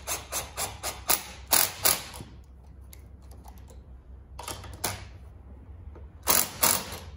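Cordless impact driver run in short trigger bursts on the bolts of a turbocharger's compressor housing, loosening them so the housing can be rotated. A quick string of about seven bursts comes in the first two seconds, a couple more near the middle, and two loud ones near the end.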